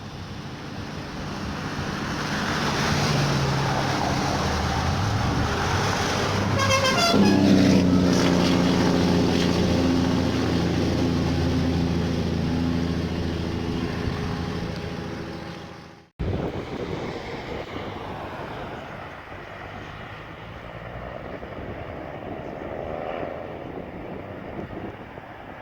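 Cummins diesel engine of a Blue Bird bus running and growing louder. About seven seconds in, a horn is held for several seconds over the engine. The sound cuts off suddenly about two-thirds of the way through, and a quieter engine sound continues.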